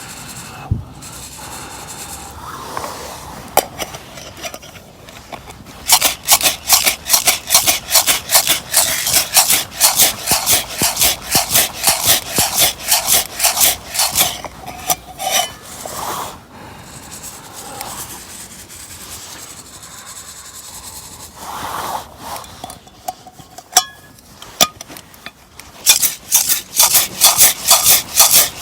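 Coffee beans rattling and scraping in a Sierra-cup mesh roasting strainer shaken over a campfire, in quick even strokes during a hand roast. The shaking pauses for a stretch about halfway, leaving scattered clicks, then starts again near the end.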